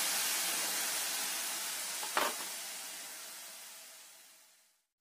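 Oil sizzling as peeled field beans deep-fry in a kadai: a steady hiss that fades away near the end. A single light knock about two seconds in.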